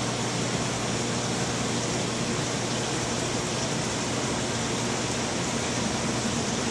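Steady rushing noise with a steady low hum underneath, from the water flow and pumps of saltwater aquarium tanks.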